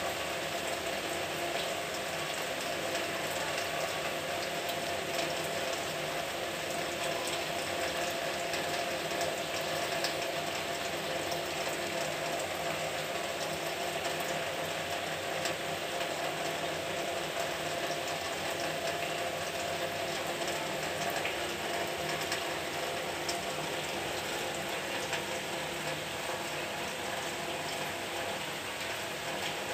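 Steady rainfall: a dense, even patter of many small drops.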